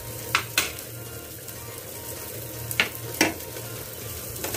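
Butter with ginger-garlic paste, curry leaves and green chillies sizzling steadily in a nonstick frying pan as chilli powder goes in. Two pairs of sharp clicks of a utensil against the pan come in, the first about a second in and the second about three seconds in.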